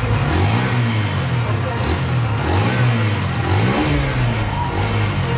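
Hero Xtreme 160R 4V's single-cylinder engine being revved repeatedly, its exhaust note rising and falling with each blip of the throttle, then holding steady near the end.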